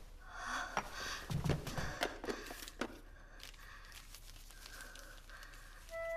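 A paper letter being handled and unfolded: soft rustling and a few light clicks in the first three seconds, then faint room tone. A flute melody starts right at the end.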